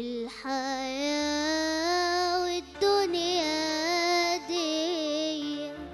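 A boy singing a long, ornamented Arabic vocal line with wavering pitch into a microphone, breaking off briefly near the middle. An electronic keyboard holds a steady low accompaniment underneath.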